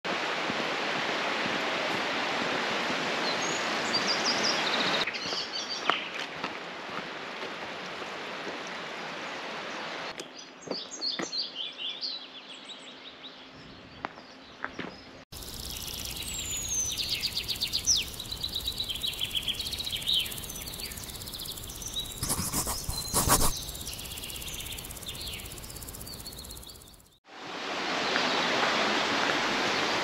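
Small birds singing and chirping over the steady rush of a woodland stream. The background changes abruptly several times as separate outdoor recordings follow one another.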